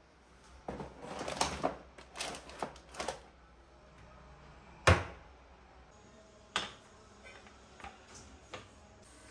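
Household objects being handled and set down on a hard surface: a quick cluster of clicks and knocks, then a single sharp knock about halfway through, another a little later, and a few lighter taps near the end.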